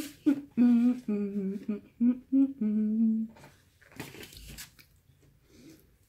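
A woman humming a string of short, tuneful notes with her mouth closed while eating. The notes stop after about three seconds, and a brief noisy rustle follows.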